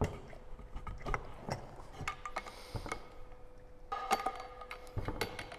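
Metal parts of a drywall loading pump clicking and clinking as the pump is handled during reassembly, with a brief metallic ring about four seconds in.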